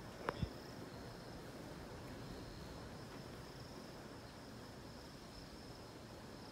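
Insects chirring in a steady, high-pitched drone, with two sharp clicks close together just after the start.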